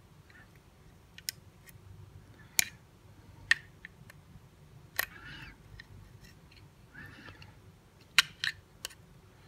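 Sharp, irregular clicks of a steel pick working the magazine release spring inside a Smith & Wesson Bodyguard 380's polymer frame, with three clicks in quick succession near the end. The spring is not lining up with its hole and keeps slipping.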